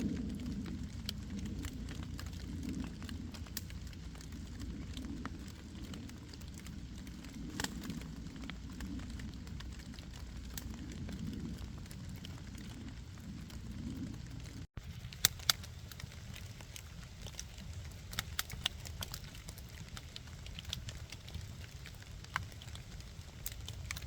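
Wood campfire crackling, with scattered sharp pops over a low rumble; the rumble drops away about halfway through while the crackling goes on.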